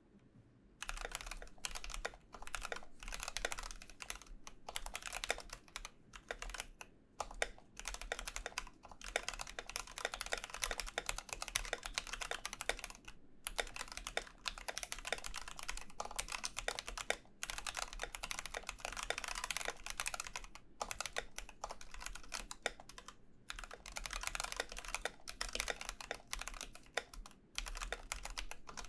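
Typing on a CJ68 mechanical keyboard with Gateron Yellow linear switches: fast runs of keystrokes broken by short pauses, starting about a second in.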